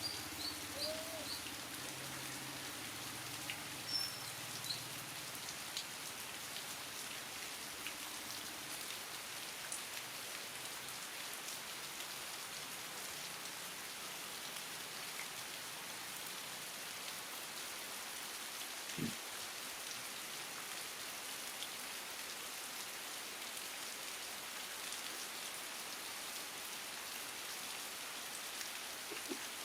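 Steady rain hissing on surfaces. A few faint high chirps come near the start, and there is a single soft low knock about two-thirds through.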